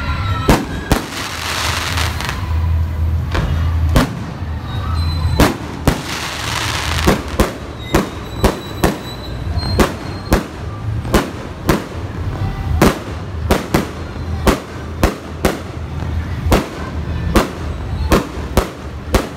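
Fireworks display: aerial shells bursting one after another in sharp bangs, about one to two a second and coming faster in the second half, with two stretches of hissing crackle near the start and about six seconds in.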